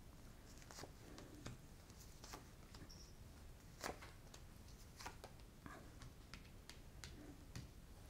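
Tarot cards being dealt one at a time onto a cloth-covered table: faint, scattered soft taps and card snaps, the clearest about four seconds in.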